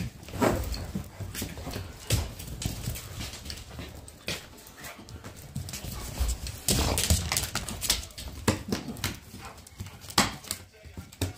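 Puppies playing on a hard floor: scuffling and paws tapping irregularly on the boards, with brief puppy whimpers now and then.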